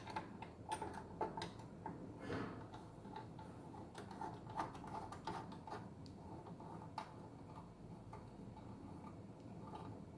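Faint, irregular light clicks and taps of hand tools and bolts as a motorcycle fairing side cover is fitted and loosely bolted on, most of them in the first half.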